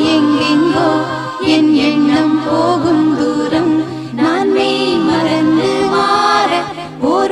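Background music: a Tamil song with sung vocals over a steady accompaniment.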